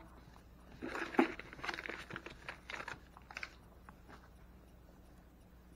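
Faint rustling and light knocks from someone handling things out of view, a scatter of short sounds over about three seconds.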